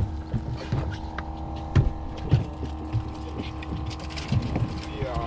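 Steady motor hum on a small fishing boat, with irregular knocks and thuds against the hull.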